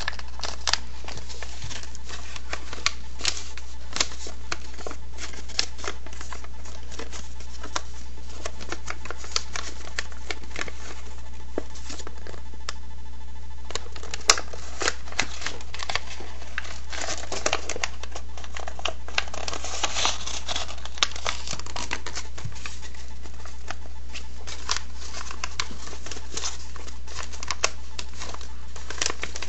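A sheet of paper being folded and creased by hand into an origami box: irregular rustling and crinkling with short crisp clicks as the folds are pressed down, over a steady low hum.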